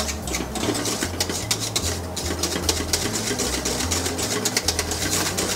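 Wire whisk clicking and scraping rapidly against the sides of a stainless steel saucepan as thick chocolate pastry cream is whisked over the heat, being brought to a boil.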